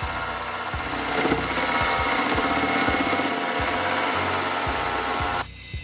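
Mini lathe running while a carbide tool cuts a spinning square aluminum block. The cutting noise grows louder about a second in and stops abruptly near the end. Background music with a steady beat plays underneath.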